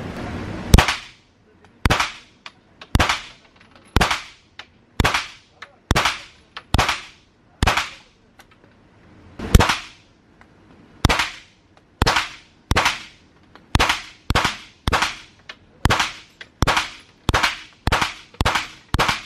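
Semi-automatic pistol firing live rounds on an indoor range: about two dozen single shots, each with a short echoing tail. They come about a second apart at first, break for a couple of seconds near the middle, then come quicker, close to two a second toward the end.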